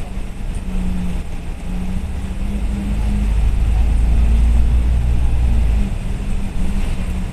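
Bus engine and road noise heard from inside the passenger cabin as the bus drives along. The low engine rumble swells from about three seconds in and eases off again near six seconds.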